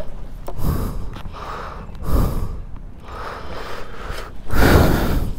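A person breathing hard in four noisy puffs, roughly one every second and a half, the last near the end the loudest.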